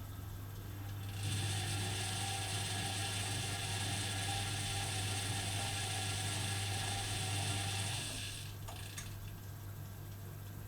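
Privileg Dynamic 4612 washing machine running its 60°C coloured wash: a steady low hum, with a loud hiss that starts about a second in, lasts about seven seconds and stops, followed by a couple of clicks.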